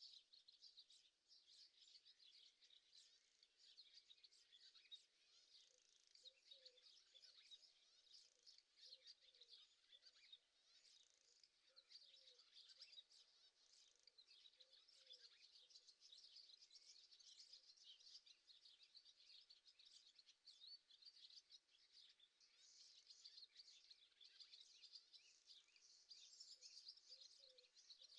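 Faint chorus of small birds chirping and calling continuously, many quick high chirps overlapping, with a few lower chirps now and then.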